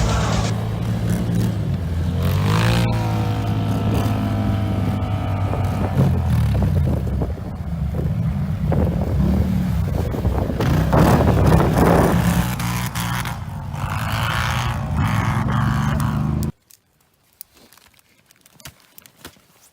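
ATV engines running and revving, with one falling rev about three seconds in. The engine sound cuts off abruptly near the end, leaving only faint scattered clicks.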